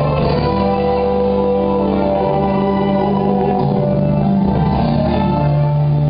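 Worship music playing: a Christian praise song with long held chords and no speech.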